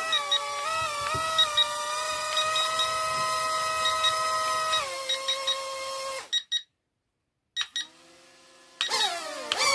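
Toy RC airplane's high-pitched whine, held steady with slight wavers, then gliding down and cutting out about five seconds in. A fainter lower tone follows after a short silence, and the whine rises again near the end.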